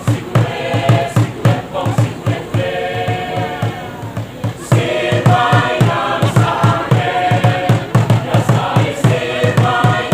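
A choir singing over a steady low drum beat of about four beats a second, getting louder about halfway through.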